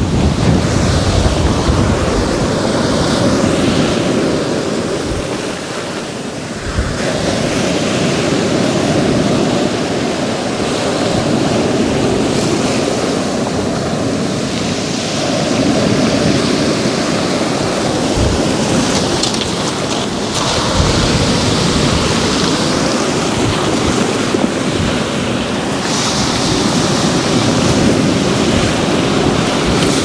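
Sea surf breaking and washing in over a pebble-and-boulder beach, its rush swelling and easing with each wave every few seconds. Wind gusts buffet the microphone.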